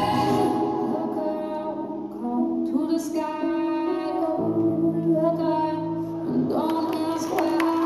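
Performance music playing: slow, sustained held notes and chords that change every second or two.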